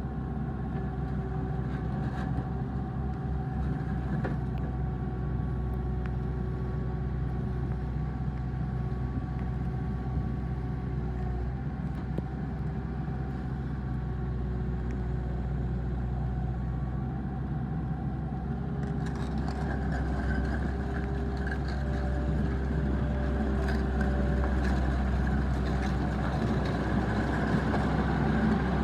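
Mustang MTL20 skid steer's engine running steadily. About two-thirds of the way through it grows a little louder and brighter.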